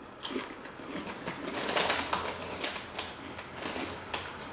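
Close-miked chewing of a Doritos tortilla chip topped with hot crab dip: irregular crisp crunches, one after another, starting just after the bite.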